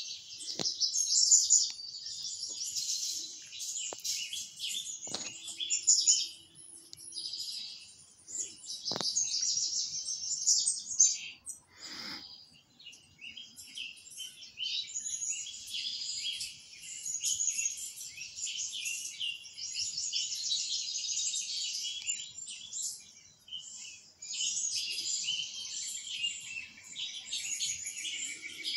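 Many small songbirds chirping and twittering in bouts with short pauses, the soundtrack of a bird video played through a television's speakers, with a few faint clicks.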